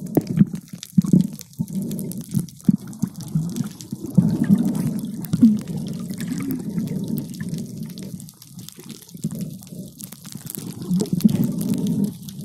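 Water sloshing and bubbling around an underwater camera's housing as it moves below the surface: a low, uneven churning with small pops.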